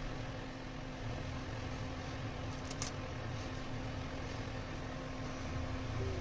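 Steady low mechanical hum, with a few short crisp snaps about two and a half seconds in as broccoli florets are broken apart by hand.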